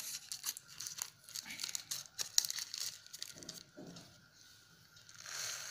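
Thin clear plastic packet crinkling as it is handled, a run of small sharp crackles that thins out after about three seconds, with a soft rustle near the end.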